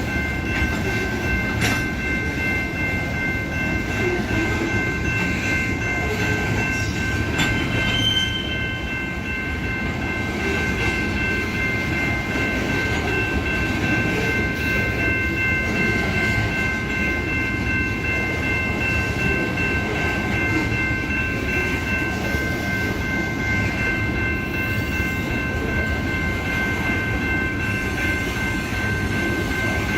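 Union Pacific freight train running: a steady rumble with several steady high tones held over it, the highest fading out in the later part.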